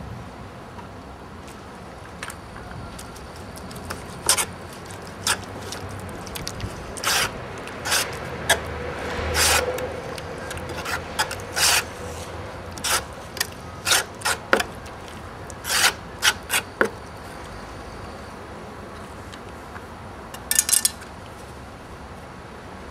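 Short scraping strokes at an uneven pace, about twenty of them, bunched in the middle with a last quick cluster near the end.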